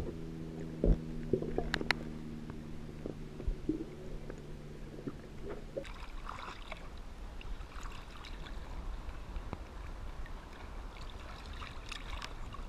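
Muffled, water-borne sound from an action camera in its waterproof housing, first submerged and then just above the sea surface: a steady low hum of several tones runs for about the first six seconds and then stops, over a constant low rumble. After that, water lapping and small splashes against the surfboard come and go.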